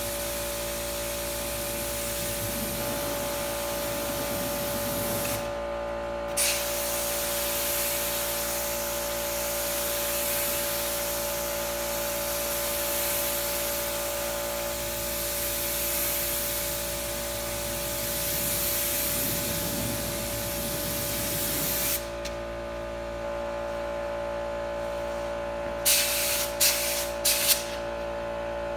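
Gravity-feed spray gun hissing as it sprays finish: a steady spray with a short break about five seconds in, cutting off at about twenty-two seconds, then a few quick short bursts near the end. A steady whine runs underneath throughout.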